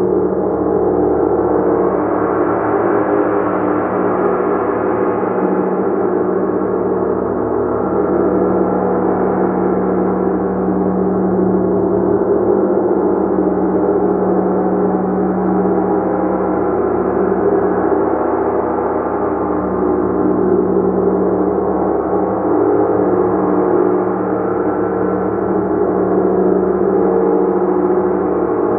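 Gong played continuously, sustaining a steady, dense wash of overlapping ringing tones with slow, gentle swells in loudness.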